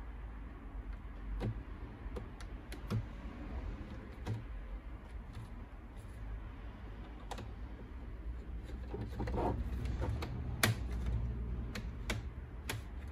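Plastic snap clips of an Acer Nitro 5 laptop's bottom cover clicking loose as a plastic pry pick is worked along the seam. Scattered sharp clicks over low handling rumble, the loudest about ten and a half seconds in, with a quick run of clicks near the end.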